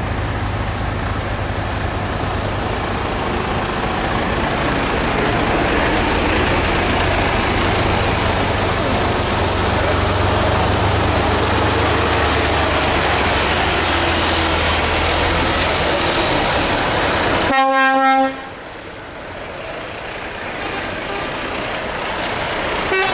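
Heavy truck tractor units (Mercedes-Benz Actros, Volvo FH) driving past in a convoy, diesel engines rumbling with road noise, growing louder as a truck approaches. About 18 seconds in, a truck's horn blasts once for under a second in one steady chord, and the noise then drops sharply. A second short toot sounds at the very end.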